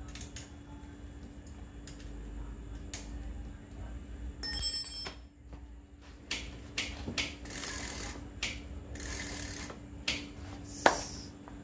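Metal clicks and rattles of a bicycle rear derailleur and chain being worked on in a repair stand, with a brief bright ringing tone about four and a half seconds in. Later come several sharp clicks, two longer stretches of rattling noise and one loud click near the end.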